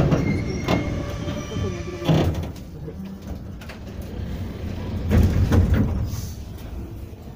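Moscow Metro Ezh3 subway car rumbling on the rails as it slows alongside a station platform, growing quieter as it comes to a stop. There is a whine for the first couple of seconds, a sharp clunk about two seconds in, and a brief swell of rumble around five seconds.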